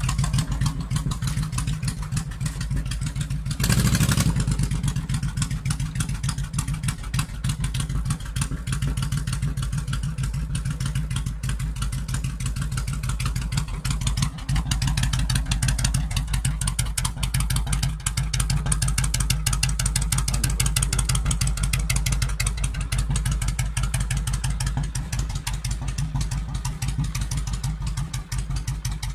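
Suzuki Intruder 1500 LC's liquid-cooled V-twin engine running at a steady idle, with a short, louder burst of sound about four seconds in.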